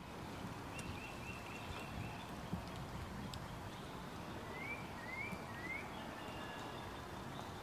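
Small birds calling in woodland: a quick run of short high chirps, then three short rising chirps, over a steady low rumble of background noise, with a single small knock about two and a half seconds in.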